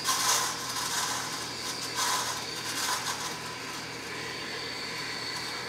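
Steam wand of a Briel ES62AF espresso machine hissing steadily into a pitcher of milk with its tip near the surface, injecting air to stretch the milk: the foam level is rising.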